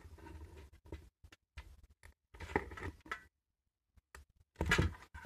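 Faint, scattered clicks and small scrapes of side cutters working on a thin wire lead, pushing its insulation back, with a stretch of complete silence in the middle.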